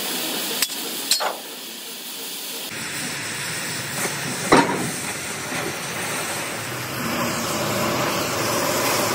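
Oxy-fuel cutting torch hissing steadily as it burns through thick steel plate, with a few sharp cracks in the first half.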